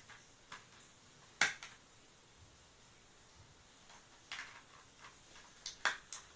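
Scattered light clicks and taps of small plastic toy makeup pieces being handled in a plastic case. The sharpest click comes about a second and a half in, and several more come close together in the last two seconds.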